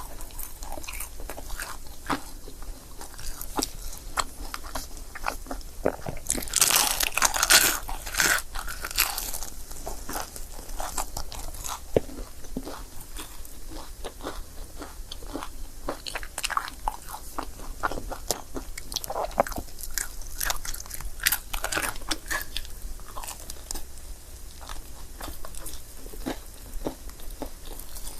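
Close-miked biting and chewing of a crepe: wet mouth clicks and crackles throughout, with a louder, denser run of bites about seven seconds in.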